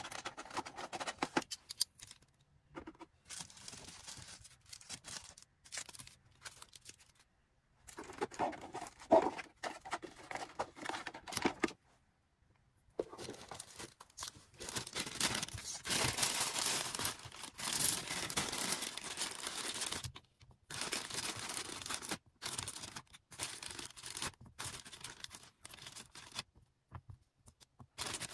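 Packaging being handled by hand while an order is packed: crinkling, rustling and tearing in stops and starts, with a longer unbroken stretch of tearing and rustling a little past the middle.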